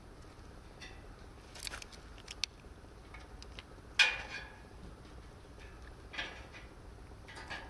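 Scattered short scrapes, rustles and clicks of hands at work lighting a log fire, the loudest a sharp scrape about four seconds in that fades quickly.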